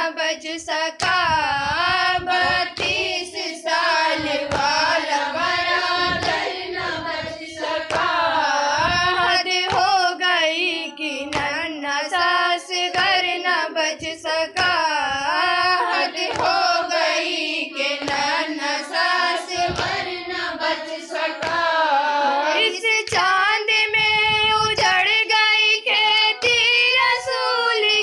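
A woman's voice chanting a Muharram noha, with rhythmic hand strikes of matam (chest-beating) keeping time.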